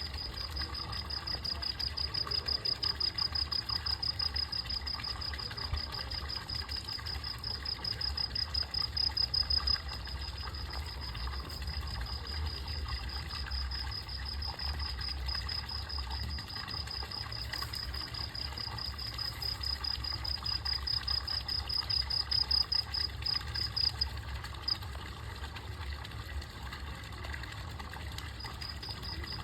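An insect, cricket-like, trilling steadily in a fast, even pulse at a high pitch. The trill stops about two-thirds of the way through and starts again near the end, over a low steady rumble.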